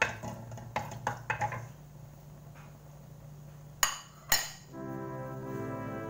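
A wooden spatula knocking against a nonstick wok while ginger is stirred: a few light knocks in the first second and a half, then two sharp knocks about four seconds in. Background music with brass instruments comes in about five seconds in.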